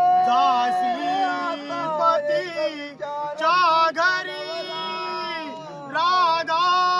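Singing: a voice carrying a slow melody in long, held notes that bend and waver.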